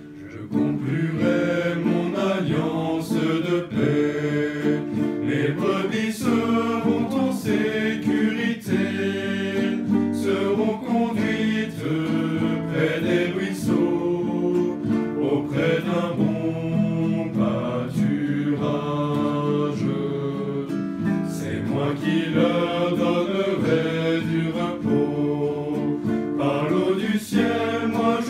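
Men singing a French worship song together, accompanied by a strummed classical guitar in a steady rhythm.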